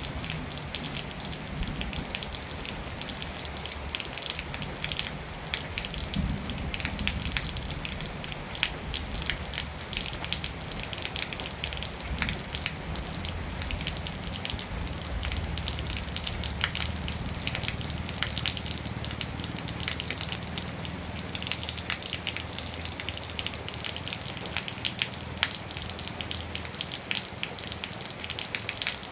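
Rain falling steadily, a dense patter of many small drop impacts, with a low steady rumble underneath.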